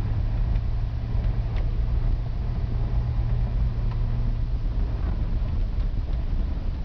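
A car driving on an unpaved dirt road, heard from inside the cabin: a steady low rumble of engine and tyre noise.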